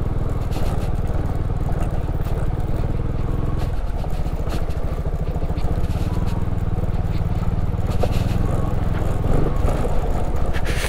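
Motorcycle engine running steadily while being ridden, its pitch dipping briefly about four seconds in.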